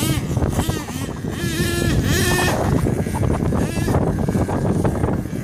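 Nitro engine of an HPI Savage XL radio-controlled monster truck revving up and down in quick rising and falling whines as it is driven over dirt and rocks, over a steady low rush.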